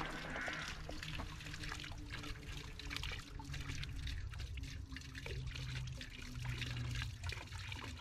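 E-mountain bike riding over a rough trail: tyres crackling on gravel and stones, with a low hum from the bike's drive.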